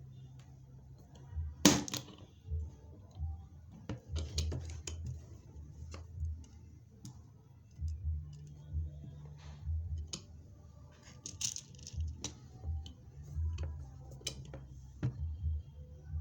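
Repeated clicks and soft low thuds of a hand-operated rivet machine pressing beads onto fabric, about one every second, with one sharp, loud click near the start.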